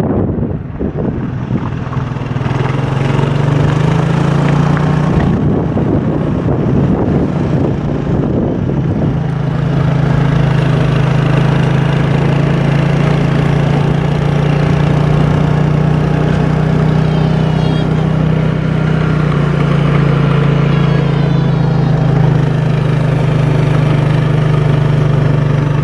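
Car engine running at low speed, its pitch rising a couple of seconds in and then holding steady.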